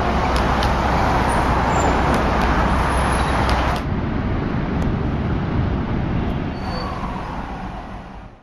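Street traffic ambience: a steady rumble of vehicles that drops off sharply about four seconds in, then a quieter traffic hum that fades out near the end.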